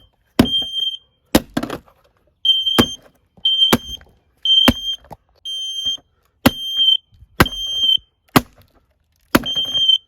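Kidde smoke alarm sounding, a shrill high beep repeating about once a second, each beep about half a second long and starting with a sharp knock. A few sharp knocks come without a beep between them.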